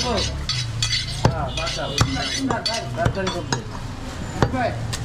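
A butcher's cleaver chopping goat meat on a wooden block: a string of sharp, irregular strikes, about one every half second to a second.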